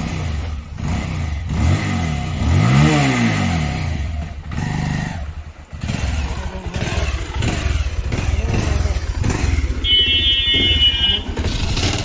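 Bajaj Pulsar 220cc single-cylinder motorcycle engine running with an irregular knocking, blipped once a couple of seconds in so the pitch rises and falls, then running on. The mechanic traces the bad noise to worn teeth on the balancer weight and a loose, failed bearing.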